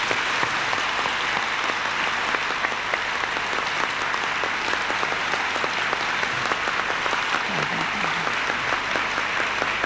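Audience applauding, many hands clapping at a steady level for about ten seconds.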